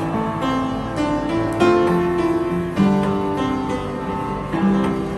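Upright piano being played: sustained chords struck afresh every second or so and left ringing, with notes moving above them.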